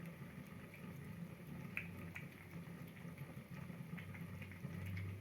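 Kittens eating: small scattered wet clicks and ticks of chewing and lapping over a low steady hum.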